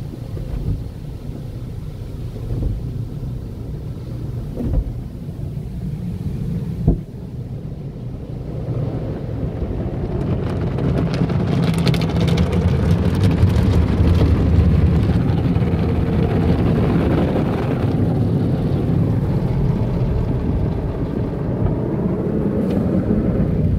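Car wash tunnel heard from inside the car's cabin: a steady low rumble of water spray and wash equipment working over the car. Two short thumps come in the first seven seconds, and the spraying grows louder and fuller about nine seconds in.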